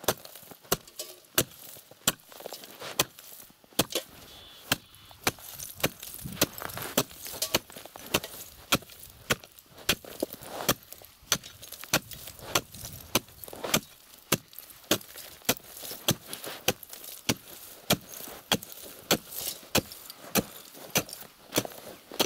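Hand ice chisel chopping a hole in pond ice: a steady run of sharp strikes, about two a second.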